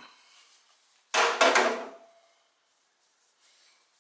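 A steel bracket set down on a hard surface: one clatter lasting under a second, with a brief metallic ring after it.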